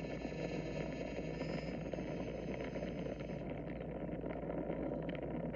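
Radio-controlled model plane's motor and propeller running, heard from a camera on the plane over a steady rush of air; the high whine cuts off about three and a half seconds in, leaving the air rush.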